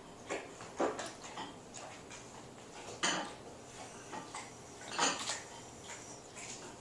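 A spoon knocking and scraping against a soup bowl as a toddler feeds himself, with a few louder clinks about one, three and five seconds in and small clicks between.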